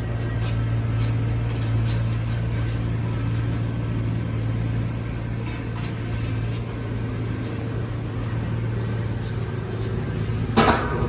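Kubota rice combine harvester running steadily with a low engine drone, with a brief louder noise near the end.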